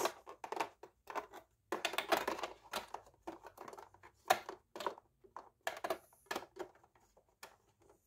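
Irregular plastic clicks, taps and rustling as a vacuum cleaner filter is handled and pushed back into place in the vacuum's housing.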